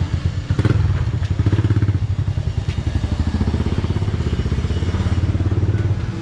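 A small engine running steadily with a fast, even pulsing, and a single thump under a second in.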